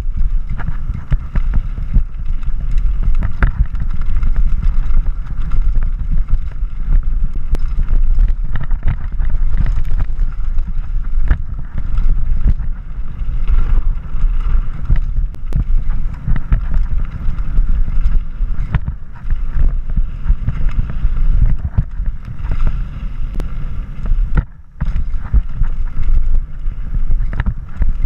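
Wind buffeting a mountain bike's action-camera microphone at speed on a downhill run, a steady low rumble, with frequent knocks and rattles from the bike over rough dirt trail and wooden boardwalk. There is a brief lull about three-quarters through.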